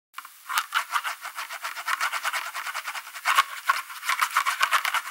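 Intro sting for an animated title logo: a fast rhythmic percussion pattern of about five to six quick strokes a second, high and without bass.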